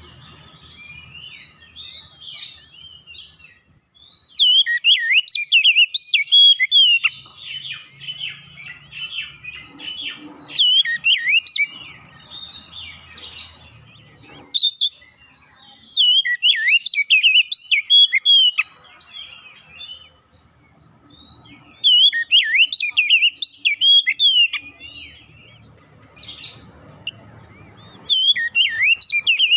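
Oriental magpie-robin (kacer) singing: loud phrases of rapid, varied whistled notes, each a few seconds long, separated by short pauses.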